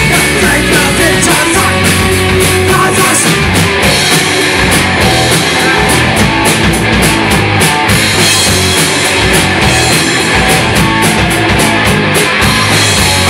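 A punk rock band playing live and loud: electric guitar over a driving drum kit, continuous throughout.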